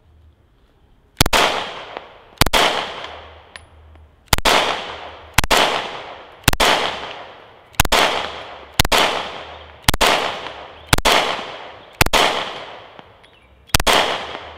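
Sig Sauer P365 9mm pistol firing about eleven single shots, roughly one a second, each echoing away. Fired with a deliberately poor grip, the pistol cycles every shot without a jam.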